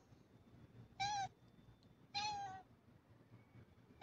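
Domestic cat meowing: two high meows, a short one about a second in and a slightly longer one a second later, with another starting at the very end.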